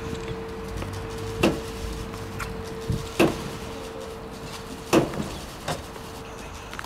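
Three heavy knocks of a bishop's wooden crozier on the cathedral's great wooden door, about one and three-quarter seconds apart, with a few fainter taps between. Under them a church bell's hum fades away.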